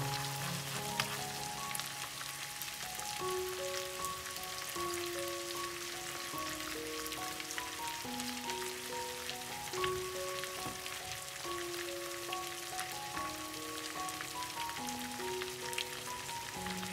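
Chicken breasts and chopped garlic sizzling in fat in a frying pan, a steady crackle with many small pops. Soft background music of slow single notes plays along with it.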